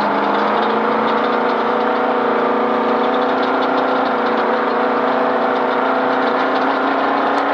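Off-road race vehicle's engine running steadily at an even, unchanging pitch, held at low speed while it runs hot at about 220 degrees.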